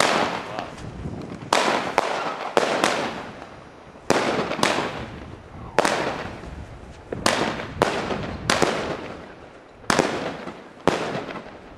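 Weco 'Big Crackles' crackling fireworks going off: about a dozen sharp bangs, some single and some in quick pairs, each followed by around a second of dense crackling that fades away.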